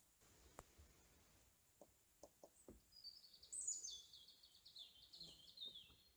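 A songbird sings one faint song from about halfway in: a quick run of high notes stepping down in pitch over about two and a half seconds. A few faint ticks come before it.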